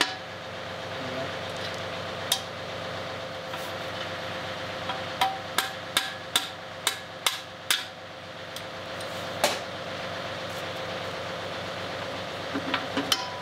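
Sharp metal knocks as a steel pin is worked into a backhoe bucket's quick-change coupler, including a quick run of about seven evenly spaced taps midway, over a steady hum.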